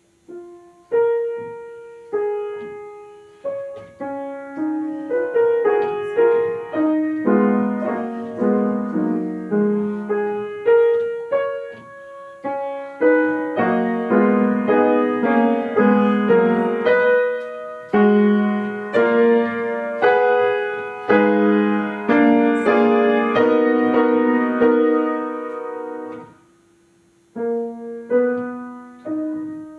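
Piano playing a classical piece: struck notes and chords that ring and fade. The phrase stops about 26 seconds in and the playing picks up again about a second later.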